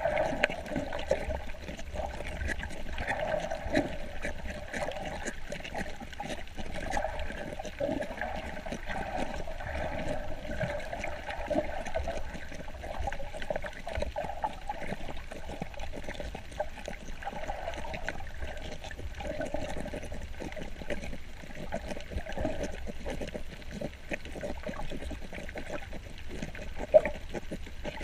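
Water gurgling and sloshing around a snorkeler's camera, muffled, with many small crackling clicks throughout and a sharper knock near the end.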